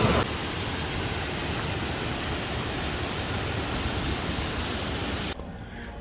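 Waterfall: a steady rush of falling water that cuts off abruptly near the end.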